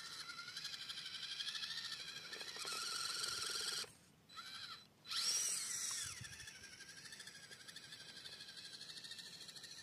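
Whine of an FMS FCX24 Lemur 1:24-scale RC crawler's electric motor and gearing as it drives up a rock, the pitch rising and falling with the throttle. It drops away for about a second near the middle, then comes back with a rising and falling whine.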